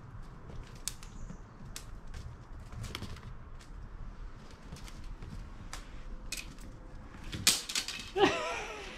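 Kittens playing with a wand toy on stone paving: scattered light taps and scuffs of paws and the toy's stick on the stone, with a louder knock about seven seconds in. Near the end a kitten gives a short, high mew that bends in pitch.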